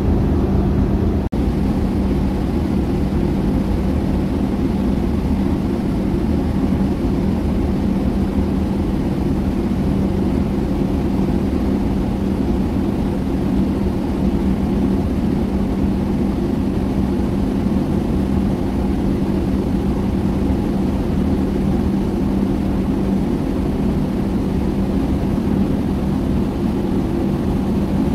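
Steady low drone of a ship's engine with a constant hum, heard from aboard a vessel working close alongside a berthing LPG tanker.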